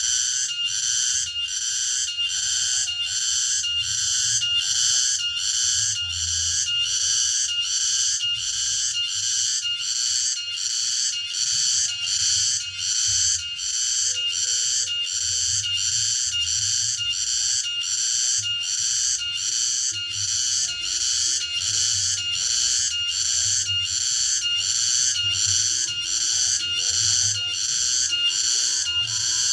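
Cicada singing: a loud, high-pitched shrill call that pulses at an even rhythm and carries on without a break.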